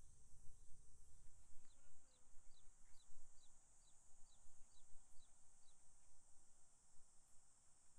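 Outdoor summer ambience: a steady high insect drone under a bird repeating one short, high, falling note about two or three times a second for some four seconds, over a low wind rumble.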